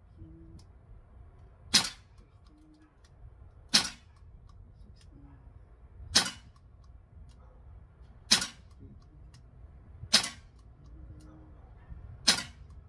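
Daisy Powerline 415 CO2 pistol firing six single shots, about two seconds apart, each a short sharp pop.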